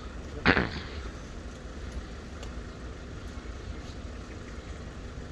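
Steady low rumble of road traffic and engines running nearby. A short, loud, pitched call cuts in about half a second in.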